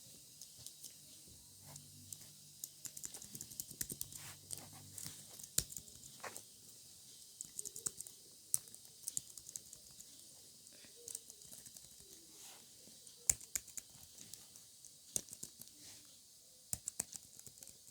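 Typing on a computer keyboard: quiet, light key clicks in uneven bursts with short pauses between them.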